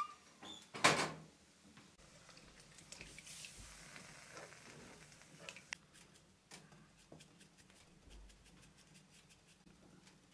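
Steel firebox door of a wood-burning cookstove swung shut, with a short metallic squeak and then a loud clank about a second in. Faint light clicks and ticks follow.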